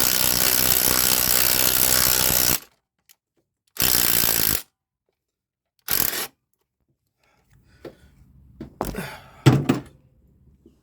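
Impact wrench running in three bursts, a long one of about three seconds, then two short ones, forcing a cross-threaded starter bolt through its threads. It ends with a few clunks, loudest near the end.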